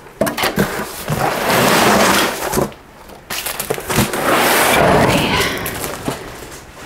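Cardboard boxes and foam packing pieces being handled: rustling and scraping in two long stretches with a short pause between.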